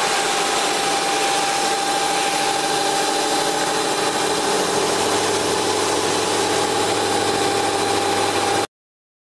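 CNC robotic polishing machine running, its motor-driven buffing wheel spinning against a curved brass workpiece: a steady mechanical noise with a constant whine, cutting off suddenly near the end.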